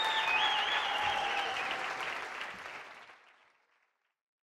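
Audience applauding, with a held high tone that wavers in pitch heard over it. The applause fades out after about three seconds.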